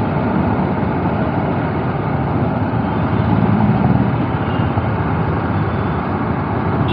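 Steady on-bike riding noise from a BMW G 310 R motorcycle moving through city traffic: rushing wind on the camera microphone mixed with the bike's single-cylinder engine running.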